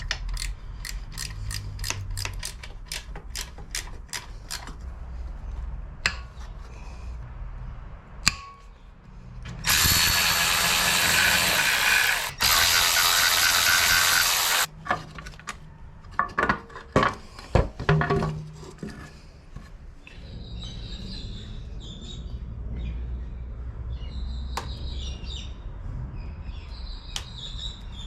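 Ratchet wrench clicking in quick runs as the exhaust bolts come undone. Then a power tool runs loudly for about five seconds, followed by a string of sharp metallic knocks, and faint bird chirps near the end.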